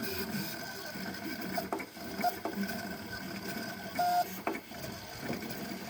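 AC-450 vinyl cutting plotter running: its carriage and feed motors make short whirring moves over a steady hum, with a few sharp clicks.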